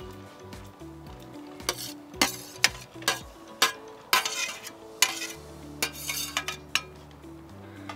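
Vegetable curry frying in a hot pan while being stirred: irregular scrapes and clinks of a spoon against the pan, with short stretches of sizzling, over soft background music.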